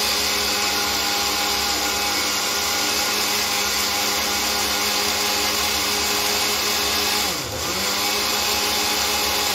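Electric mixer grinder running steadily, blending mint chutney in its stainless steel jar. About seven and a half seconds in, the motor briefly drops in pitch and then picks back up.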